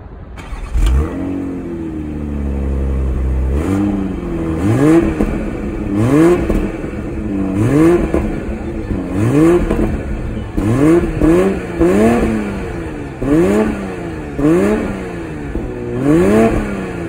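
BMW Z4 M40i's turbocharged straight-six exhaust, heard at the tailpipe: the engine fires up and settles over the first few seconds, then is blipped in a series of about eleven quick revs, each rising and dropping back to idle.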